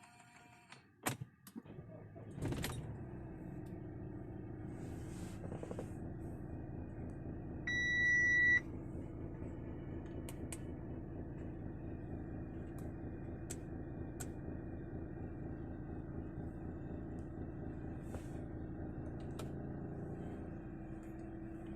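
Audi A4 engine starting about two and a half seconds in, after a few clicks, then idling steadily. About eight seconds in, a single electronic chime tone sounds for under a second.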